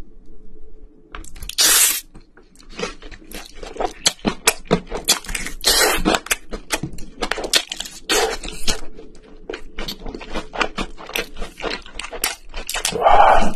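Close-miked eating of crispy fried chicken: sharp crunches of the fried crust, meat tearing from the bone and wet chewing, in a dense run of crackles and smacks with a few longer, louder crunches.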